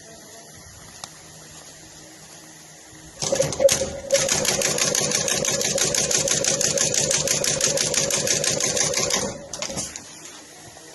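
Industrial sewing machine stitching at speed: it starts about three seconds in, runs as a fast, even clatter with a steady hum for about six seconds, and stops suddenly.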